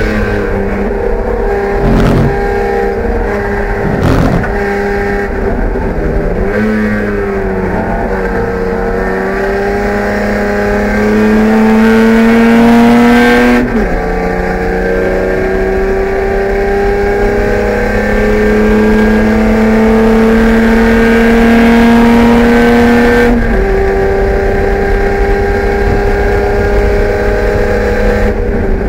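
BMW E30 race car's engine heard from inside the cockpit under full acceleration, the revs climbing steadily through a gear, then dropping sharply at an upshift about halfway through and again about two-thirds through. Two short knocks in the first few seconds.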